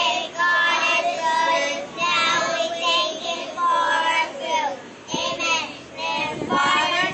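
Young children singing a prayer before eating together, in a sing-song of held, wavering notes with a short pause about five seconds in.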